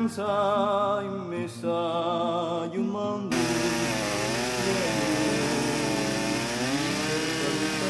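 Music with sustained, wavering notes cuts off abruptly about three seconds in and gives way to a petrol chainsaw cutting through a log, its engine pitch rising and falling under load.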